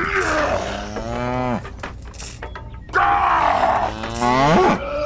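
Rubber chicken toy being squeezed: two long, honking, moo-like squawks, each starting with a rush of air. The first holds a low pitch and then drops away, and the second climbs sharply in pitch near the end.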